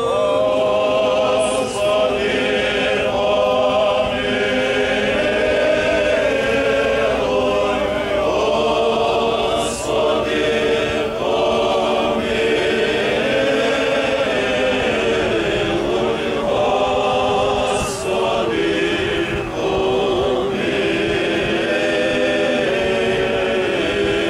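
A group of voices singing a slow Ukrainian Byzantine-rite funeral chant without accompaniment, in long held phrases with short breaks for breath.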